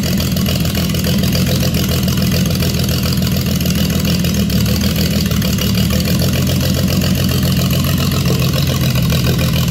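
A carburetted Nissan petrol engine from a Jonga, out of the vehicle, running steadily.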